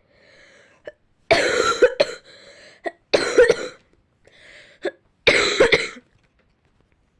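A girl who is ill coughing three times, about two seconds apart, each cough preceded by a quieter in-breath.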